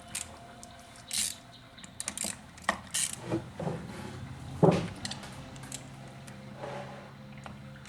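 Hand tools clicking and clinking against the metal parts of a chainsaw as a small stuck cover is worked at: a scatter of separate light clicks and taps, with one louder knock about four and a half seconds in.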